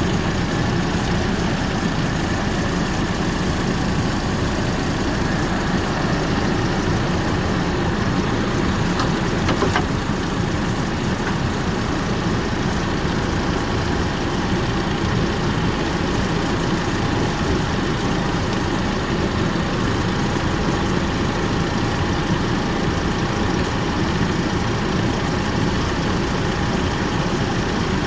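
Hummer H3 engine idling steadily, with one faint click about ten seconds in.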